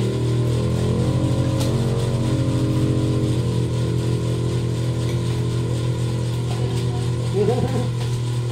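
An engine running steadily under a constant low hum, with a layer of overtones in the first few seconds that then fades; brief voices near the end.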